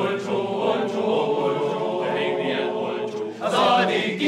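A male choir singing a long held chord in several voices, then moving into a new phrase about three and a half seconds in.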